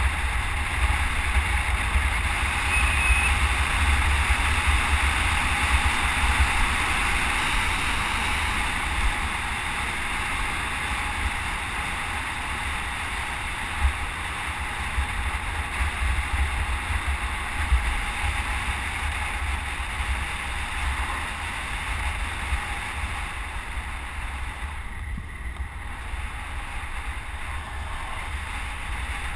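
Wind rushing over a helmet-mounted GoPro camera on a road cyclist riding at speed: a steady low rumble with a hiss over it, easing a little after the first third.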